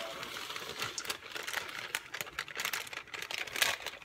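Dry cookie mix pouring out of a crinkling plastic bag into a stainless steel mixing bowl: a rustling hiss with many small sharp clicks and crackles, densest at the start.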